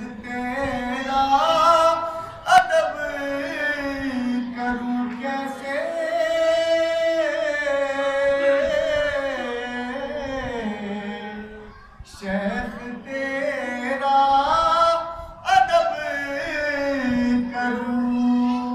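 A man singing an Urdu manqabat (a devotional song in praise of Ali) solo into a microphone, with no instruments. His voice holds long, wavering ornamented notes, with a short break for breath about twelve seconds in.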